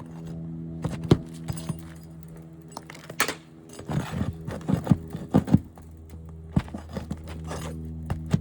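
Hand tools knocking and clacking on asphalt shingles as a shingle is pried loose from its sealant strip, in irregular sharp taps with a quick cluster past the middle, over a steady low hum.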